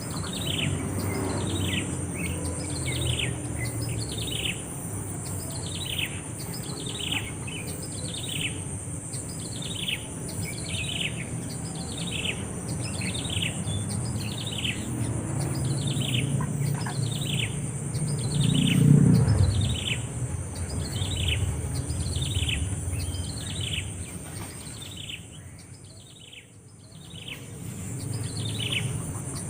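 A bird calling over and over, a short chirp that slides down in pitch, about once a second. A steady high-pitched hiss runs beneath it, and a low rumble swells briefly about two-thirds of the way through.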